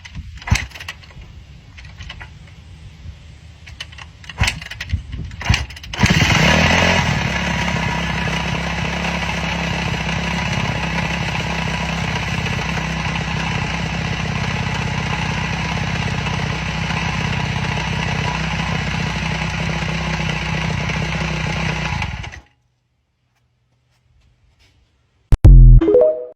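2007 Kawasaki KX250F's single-cylinder four-stroke engine being kicked over a few times, catching about six seconds in and running steadily for about sixteen seconds before cutting off suddenly; the owner says it has a slight tick. A brief loud burst comes near the end.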